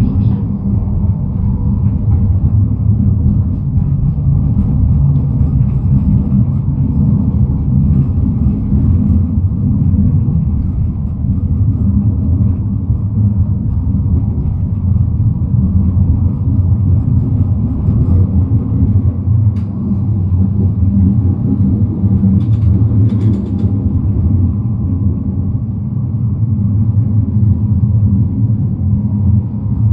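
NGT12 low-floor articulated tram running along street track, heard from on board: a steady low rumble of wheels and running gear with a faint steady tone above it. A few short clicks come about two-thirds of the way through.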